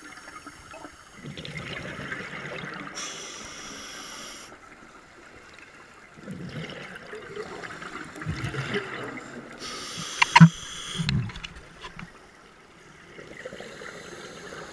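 Scuba diver breathing through a regulator underwater: exhaled bubbles gurgling out in surges a few seconds apart, with a brief hiss of inhalation between them. One sharp click about two-thirds of the way through.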